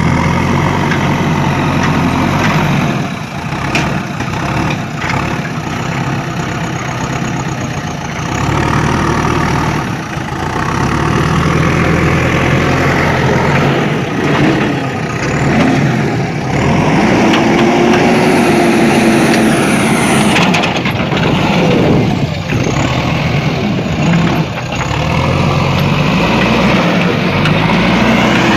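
Vehicle engine running, with its pitch rising and falling at times in the middle, like a loader working.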